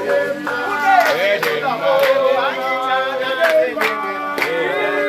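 Several voices singing together in unison, with hand claps keeping a steady beat a little under two claps a second.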